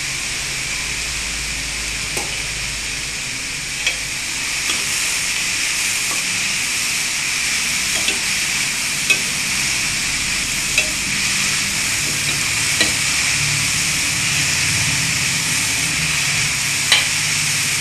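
Chopped elephant yam stems sizzling in hot oil in a stainless steel pan while being stirred with a steel spoon, with a steady hiss and now and then a sharp clink of the spoon against the pan.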